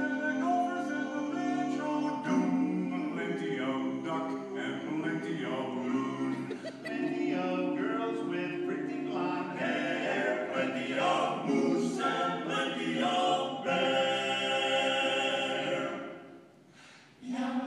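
Barbershop quartet of four men singing a cappella in close harmony, ending a phrase on a long held chord, then a brief pause near the end.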